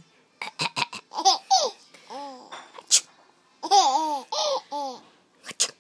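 A six-month-old baby laughing in bursts, set off by short, sharp coughs from an adult: a few quick coughs near the start, one at about three seconds and more near the end, each followed by the baby's laughter.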